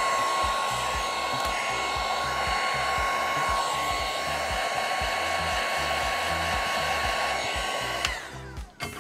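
Heat gun blowing hot air steadily with a high motor whine, warming the microphone adhesive stickers so they bond. It switches off abruptly about 8 seconds in.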